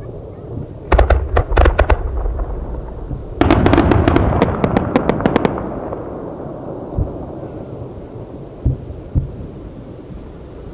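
Aerial fireworks bursting: a cluster of sharp cracking reports about a second in, then a denser rapid volley of cracks from about three and a half seconds, followed by a fading rumble and a few single distant thumps.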